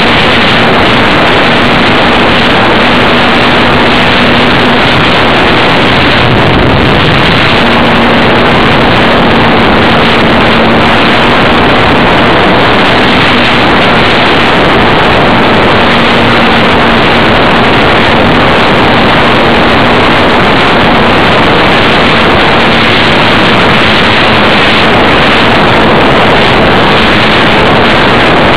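Loud, steady rush of airflow and electric motor and propeller noise from an E-flite Funtana 300 foam RC plane in flight, picked up by a small camera mounted on its fuselage. A faint low steady hum under the noise drops out and returns several times.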